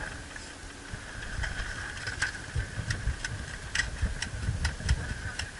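Scattered sharp clicks, about ten over a few seconds at irregular spacing, over a run of low thuds and a steady high-pitched hum.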